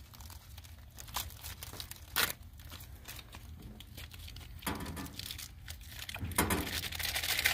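Plastic hot dog package crinkling as it is opened and handled, with a sharp click about two seconds in.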